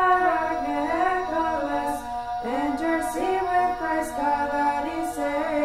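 A woman's voice singing a slow, chant-like melody over a steady held drone note.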